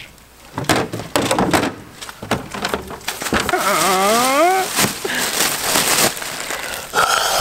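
Black plastic bin bags crackling and rustling as hands rummage through a wheelie bin, with a short wavering vocal sound about halfway through.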